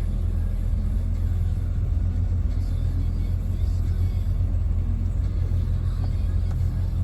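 Land Rover Discovery 2's V8 engine idling steadily, a low even rumble. Its cracked, hardened O-ring, which had caused a vacuum leak and rough idling, has just been replaced.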